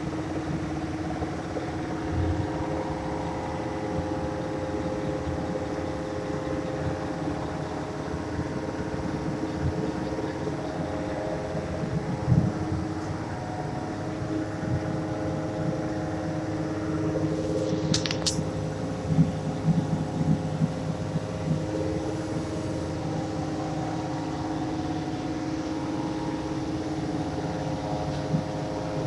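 Steady machine hum made of several held tones over a low uneven rumble, its pitch shifting slightly now and then. A brief sharp click comes about two-thirds of the way through, followed by a few light knocks.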